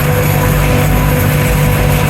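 Farm machinery at a silage harvest, a forage harvester and a tractor, running steadily: a loud, even diesel drone with a steady whine above it.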